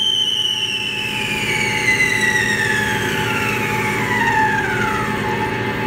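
CNC turret lathe's cutting tool feeding into the spinning metal part near the chuck: a high squeal that falls steadily in pitch over about five seconds, over the steady hum of the machine.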